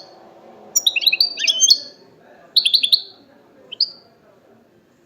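European goldfinch singing: several short, quick twittering phrases with brief pauses between them.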